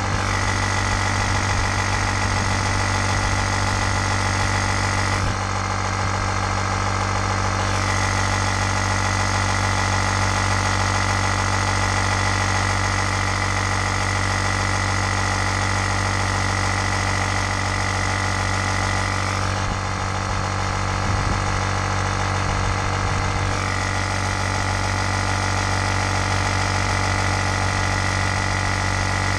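12-volt electric air pump running steadily, inflating an inflatable boat through its hose: a constant low motor hum with a higher whine on top that changes twice, for a few seconds each time.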